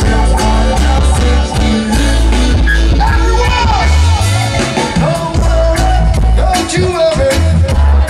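Live reggae band playing through a festival PA: a male singer on microphone over electric guitars, bass guitar, drums and keyboards, with a heavy steady bass line.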